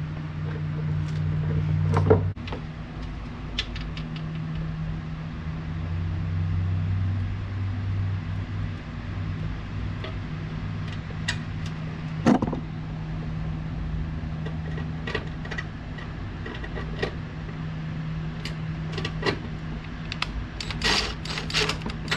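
Steady low hum of a small electric motor, with scattered sharp clicks and knocks of tool work and a quick run of knocks near the end.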